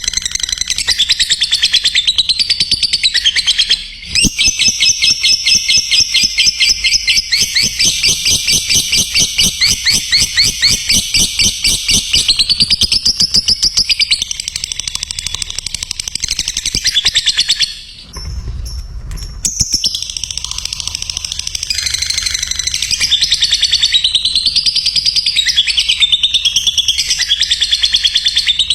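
Lovebird singing 'ngekek': a long, fast, high-pitched chattering trill, broken off once briefly past the middle.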